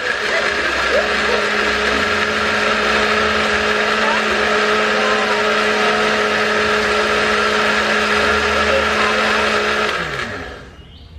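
Electric blender running at one steady speed with a motor hum, pureeing Chinese kale with coconut water. It is switched off about ten seconds in, and the motor winds down with a falling pitch.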